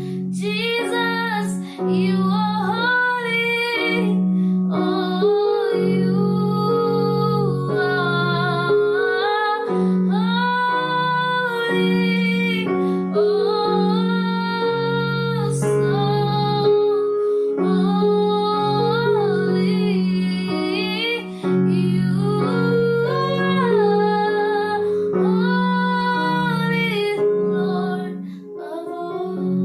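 A woman sings a slow worship song over sustained keyboard chords.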